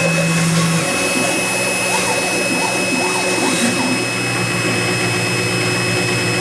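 Mini CNC mill at work: its spindle motor whines steadily at a high pitch while the stepper motors drive the axes with lower tones that change pitch in short steps as the bit cuts through cardboard.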